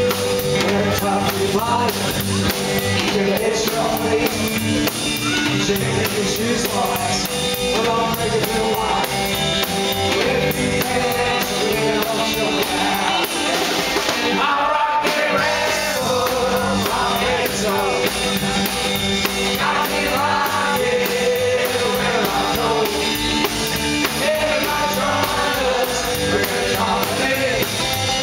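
A rock and roll band playing live, loud and steady throughout.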